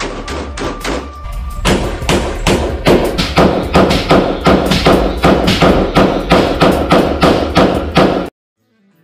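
Rapid semi-automatic handgun fire at an indoor range, about three shots a second, over a low music bed; it stops abruptly near the end.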